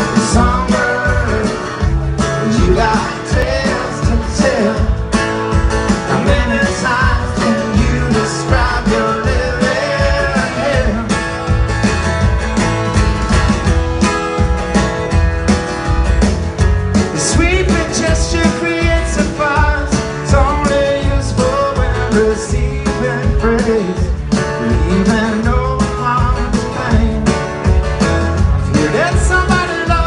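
Live rock band playing: strummed acoustic guitar with electric guitars and drums keeping a steady beat, and a man singing.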